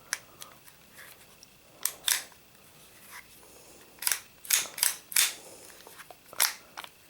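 Sig Sauer Mosquito .22 LR pistol being function-checked after reassembly: its slide worked back and forth several times, giving a series of sharp metallic clacks, some in quick pairs.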